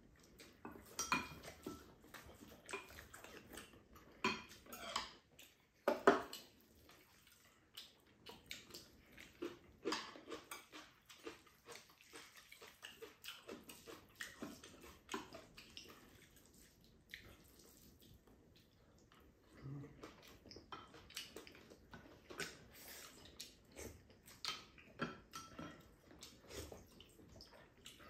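Spoons and chopsticks clinking and scraping against ceramic rice bowls as two people eat, in scattered light clicks with one sharper knock about six seconds in.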